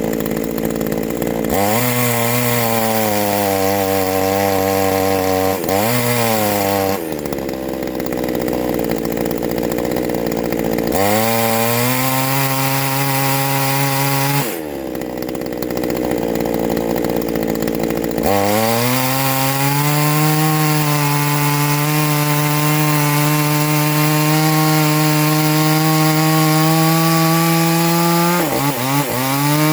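Port-worked neo-tec NH841 two-stroke chainsaw at full throttle, cutting into softwood, then revving out free between cuts. The engine note climbs in pitch each time the chain comes out of the wood, with a quick drop and recovery near the end.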